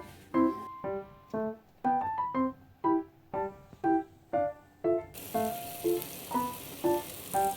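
Background music: soft keyboard notes in a slow, even rhythm, about two a second. About five seconds in, a steady hiss joins.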